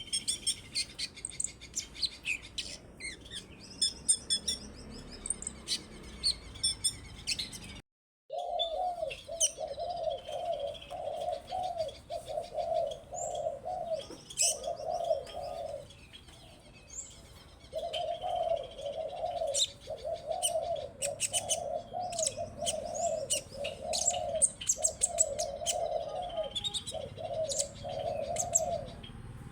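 Small songbirds, a sunbird by the title, give quick high chirps and trills. After a brief cut about eight seconds in, a dove coos in a low note repeated about twice a second, with the high chirps going on over it.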